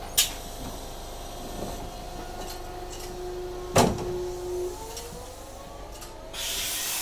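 Traction motors of a 3200-type tram whining, the pitch rising steadily as it accelerates, with two sharp clunks, the second and louder one just before the rise. A rushing hiss comes in near the end.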